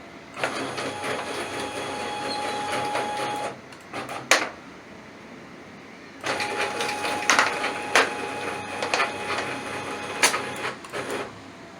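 Linear actuator axis driven by a hybrid servo stepper motor, making two travel strokes with a steady whine. Its accordion bellows cover makes a lot of rattling noise as it collapses and extends. There is a sharp click in the pause between the strokes.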